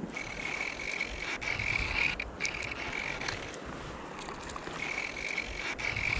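Fly reel's ratchet drag buzzing as a hooked fish pulls line off, in two runs: one for about the first two seconds and another starting about five seconds in. A low rumble of river water and wind runs underneath.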